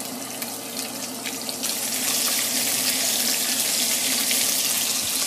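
Minced fresh ginger sizzling in hot olive oil in an enamelled pot, stirred with a silicone spatula. It has a few light ticks at first, and the sizzle grows louder about two seconds in.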